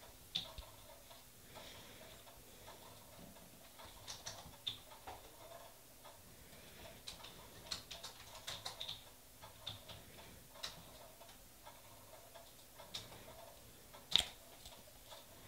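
Faint, irregular small clicks and taps of a nail polish bottle, its cap and brush being handled while polish is put on, with one sharper click near the end.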